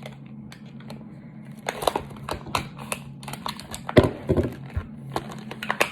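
Product packaging being opened by hand: a run of small clicks and crinkles, with one louder knock about four seconds in.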